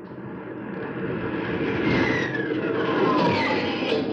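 Radio-drama sound effect of warplanes going in on a bombing run: a rush of aircraft engine noise that swells over the first two seconds, with a whistle falling in pitch about two seconds in.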